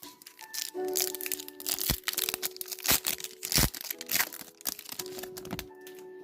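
Foil booster-pack wrapper being torn open and crinkled, with sharp irregular crackles, over soft background music with held notes.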